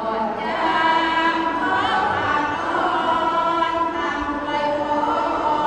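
Group of women chanting sorapan, Thai Buddhist verses sung in unison as a melodic chant, in long drawn-out notes.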